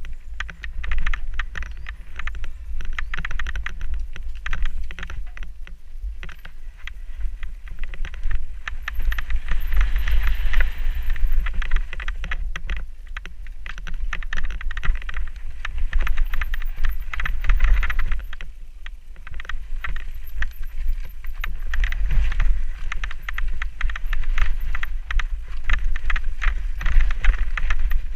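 Mountain bike descending a rough forest singletrack: tyres crackling over dirt, roots and stones and the bike rattling, getting louder and quieter as the pace changes. Heavy wind buffeting on the camera microphone underneath.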